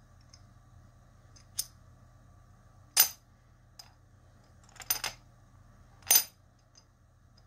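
Small metal diamond puzzle clicking and tapping in the hands as its pieces are fitted together, and knocking on a tiled floor as it is set down. About five short, sharp metallic clicks, the loudest about three seconds in and again about six seconds in.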